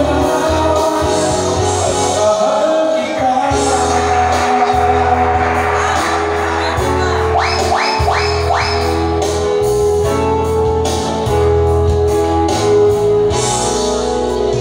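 A singer's voice through a microphone over amplified backing music with guitar and a steady bass line; the singing drops out for an instrumental stretch in the middle, where four quick rising sweeps sound.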